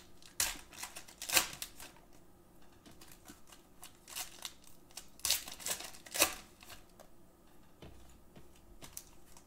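Basketball trading cards and a pack wrapper being handled on a tabletop: a handful of short, sharp swishes and taps as cards are slid and set down on a stack, with brief crinkling of the wrapper.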